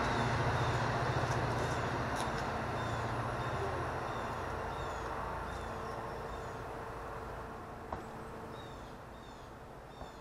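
A low engine rumble slowly fading away, with a small bird repeating short falling chirps throughout and a single click about eight seconds in.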